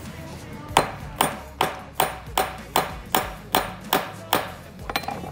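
Steel hammer striking a steel Shimano HG 8-speed bicycle cassette about ten times in a steady rhythm, a little over two blows a second. Each metal-on-metal blow rings briefly. The blows are knocking at the cassette's small cogs to get them off.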